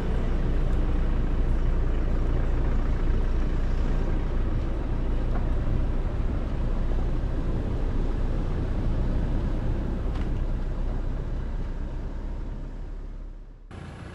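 Toyota Hilux pickup driving slowly over a rough dirt and grass track: a steady low rumble of engine and tyres. It cuts off sharply near the end, leaving a quieter steady background.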